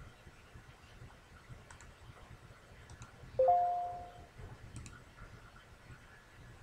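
A short two-note electronic alert chime from a computer, a lower note followed at once by a higher one, fading out within about a second. A few faint clicks come before and after it.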